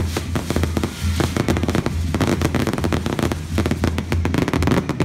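Fireworks going off in a rapid string of bangs and crackles, several a second, as rockets burst overhead.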